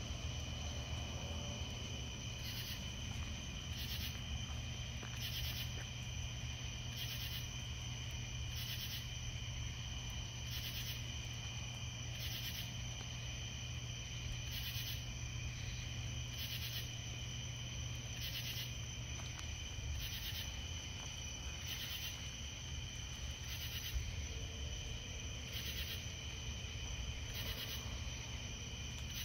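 Night insects: a steady high trilling of crickets, with a louder insect call repeating every one and a half to two seconds, over a steady low hum.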